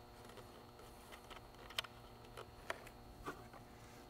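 A few faint, short clicks and handling noises as a power cable connector is fitted into the back of a Lowrance Elite Ti fish finder.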